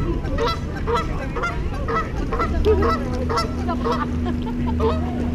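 Canada geese honking over and over, about two honks a second. A steady low hum comes in about halfway through.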